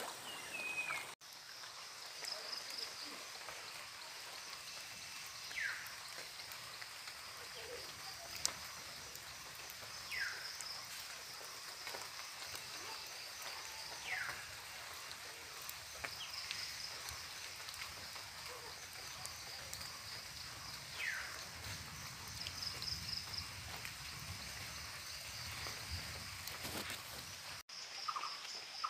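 Rural outdoor ambience: a high insect buzz that pulses in and out, with short falling bird calls every few seconds, over a faint steady hiss.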